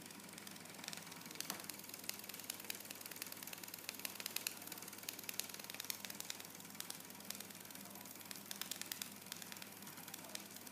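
Small model steam engine with a brass flywheel, fed from a copper vertical boiler, running: a faint, fast, uneven ticking of its strokes and exhaust puffs over a steady hiss.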